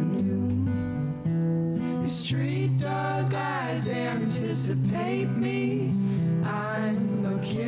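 Background music: a gentle song with acoustic guitar and a singing voice.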